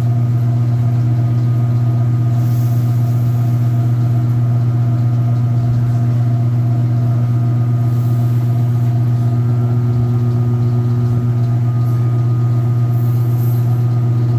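Washing machine running, its motor giving a loud, steady hum that does not change.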